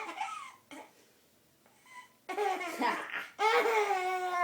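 A toddler's voice: a laugh trailing off at the start, then after a short pause wordless babbling in drawn-out, high-pitched sounds, the last one long and held.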